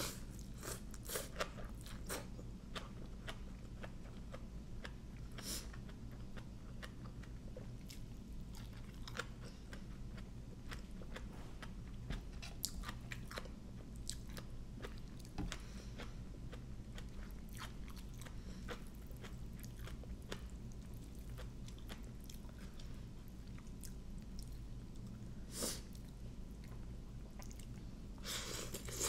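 A person chewing and crunching mouthfuls of Thai papaya salad with raw shrimp and crisp fresh greens, close to the microphone: steady wet chewing full of small crunches, with a few louder bites.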